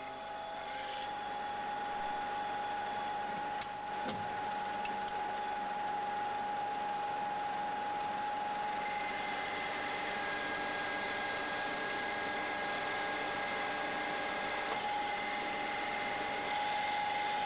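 Capstan lathe turning a bar through a tangential roller box at 1,260 rpm, with coolant flowing over the cut: a steady machining noise carrying several constant whining tones, with a brief dip about four seconds in.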